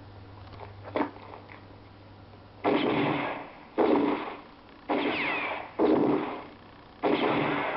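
Five rifle gunshots from a western film soundtrack, about a second apart, starting a little under three seconds in. Some are trailed by a falling ricochet whine. The sound is thin and muffled, as it comes off a TV speaker.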